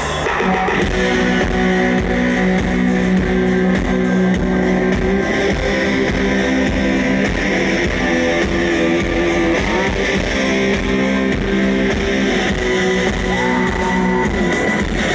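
Live rock band playing: loud electric guitars holding sustained chords over bass guitar.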